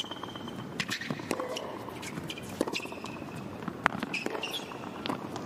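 Tennis rally on an indoor hard court: sharp pops of racket strings striking the ball and the ball bouncing, the loudest hit about four seconds in. Between the hits come short high squeaks of tennis shoes on the court.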